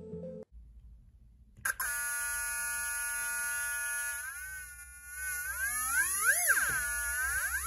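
Breadboard theremin from a MicroKits kit, sounding through its small speaker: a buzzy tone starts suddenly under two seconds in and holds steady, then bends and swoops up and down in pitch as a hand moves near its wire antennas.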